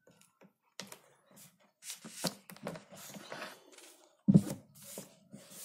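Paper textbook pages rustling and scraping as they are handled, in a series of short, uneven noises, with one louder knock about four seconds in.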